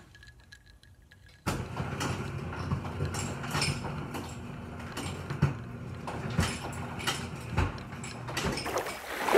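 Almost silent for about a second and a half, then handling noise right on the microphone: rubbing and scraping with scattered clicks and taps as a drinking glass is pressed and moved against the phone.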